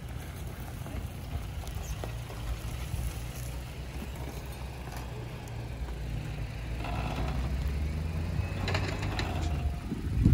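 An off-road SUV's engine running steadily, growing louder about six seconds in, with a few short clicks and knocks near the end.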